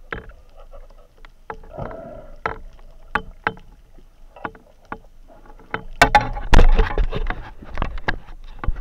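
Underwater handling noise picked up through a camera housing: scattered sharp clicks and knocks, then from about six seconds in a louder rush of moving water with more knocking.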